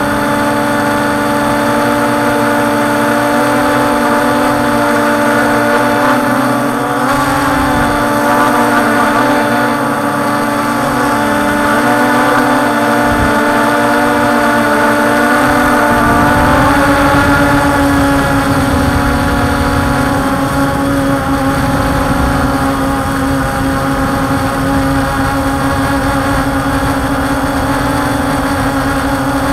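Drone's electric motors and propellers whining steadily as heard from an onboard camera, several fixed tones with the pitch wavering slightly in the middle. Wind buffeting on the microphone adds a low rumble from about halfway through.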